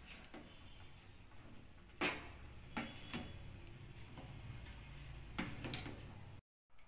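Metal ladle clinking against the pot while stirring thick milk payasam: a few light, irregular clicks, the sharpest about two seconds in.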